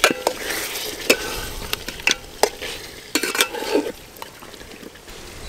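Metal spatula stirring mutton and potatoes in an aluminium pot, knocking and scraping against the pot several times, over a steady sizzle of the meat braising in its masala.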